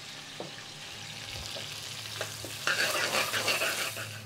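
Sliced onions sizzling in hot ghee in an aluminium pan, with a few light clicks of a metal ladle. About two-thirds of the way in, the sizzle grows louder with clattering for a second or so as the onions are stirred.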